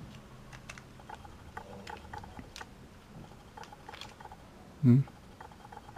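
Light, scattered clicks and taps of a small screwdriver tip working against the plastic trigger-switch parts inside an opened Skil 2248 cordless screwdriver. A brief voice sound comes about five seconds in.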